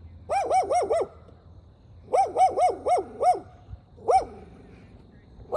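An animal calling in quick yelping notes, each rising and then falling in pitch: a run of four, a pause, a run of five, then one more.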